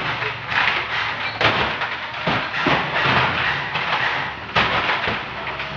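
Blue plastic water containers being set down and stacked on the floor of a truck's box body: a series of irregular thumps and knocks, about eight in all.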